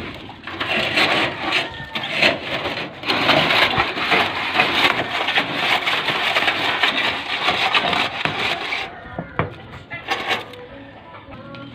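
Dense, scratchy scraping and brushing as a tingting broom of stiff coconut-leaf midribs is worked through packed soil and debris in a metal roof gutter. The scraping thins out and goes quieter about nine seconds in.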